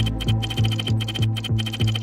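Background music with a steady pulsing beat of about three to four strokes a second over sustained low tones, with a fast high ticking pattern on top.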